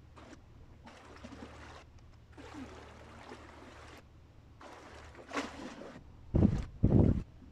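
Sea water washing and trickling at the shoreline in soft stretches, with two loud, short, muffled blasts on the microphone near the end.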